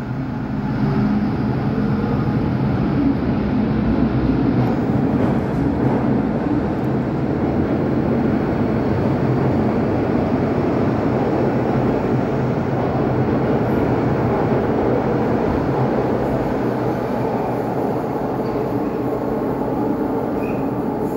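MTR Metro-Cammell M-Train electric multiple unit pulling out of a station and running past, a steady rumble of wheels and motors that eases slightly near the end as the last cars go by.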